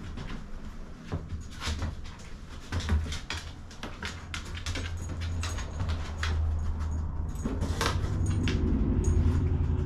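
A dog sniffing hard in quick short sniffs with its nose to the floor, working a scent search for hidden odour. A steady low hum runs underneath and grows louder about halfway through.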